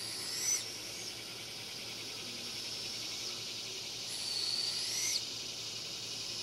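A bird's high, thin whistled call, held level and then rising before breaking off sharply, heard twice about four seconds apart over a steady high hiss.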